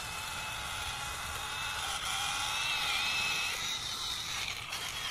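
Small electric motor and plastic gearbox of a toy RC tractor whirring steadily while hauling a trailer loaded with sand, with a thin, slightly wavering whine; it gets a little louder about two seconds in.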